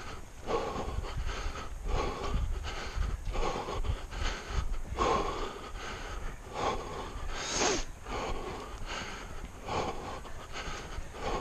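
A runner's heavy, rhythmic panting, one hard breath about every second, heard close up from a head-worn microphone.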